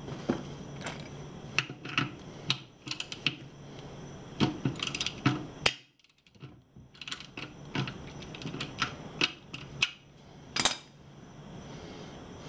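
Irregular, sharp metallic clicks and clinks, some in quick runs, from a hand wrench being worked on the nut of a TPMS sensor's valve stem inside a wheel rim. The sound drops out for about a second near the middle.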